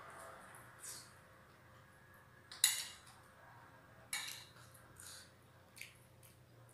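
Metal spoon clinking and scraping against a ceramic bowl of food, about five short clinks, the loudest about two and a half seconds in.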